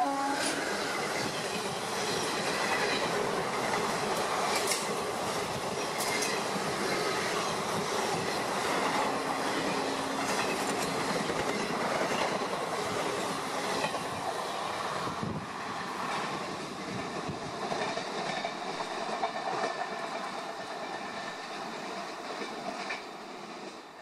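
Passenger coaches of an express train passing at speed: a steady rush and rumble of wheels on rail with clattering over the rail joints and a few sharp clicks. It eases off slightly in the last few seconds.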